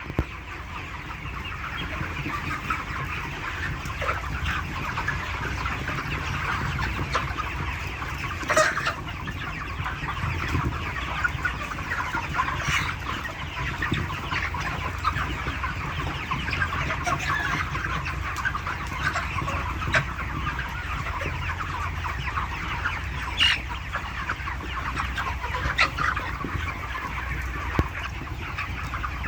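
A large flock of broiler chickens clucking and cheeping in a continuous dense chatter, with a few louder calls standing out now and then over a steady low hum.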